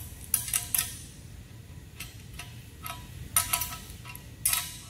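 Small wrench turning the nut of a concrete wedge anchor on a steel post's base plate: a series of irregular metallic clinks in small groups, each with a short ring from the steel. Tightening the nut draws the bolt up and sets the anchor's wedge clip against the inside of the drilled hole.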